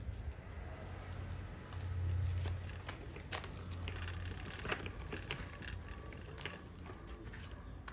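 A child's bicycle with small training wheels being pushed over rough concrete: tyres rolling and crunching grit, with scattered sharp clicks and a low rumble that swells about two seconds in.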